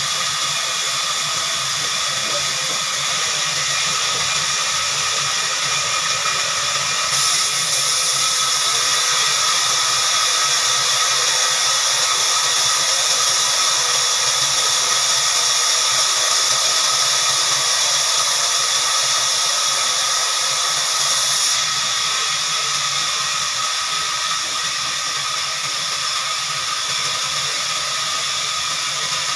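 Heavy-duty horizontal band sawmill running, its blade giving a steady high whine and hiss. The hiss grows louder about a quarter of the way in and drops back sharply about three quarters through.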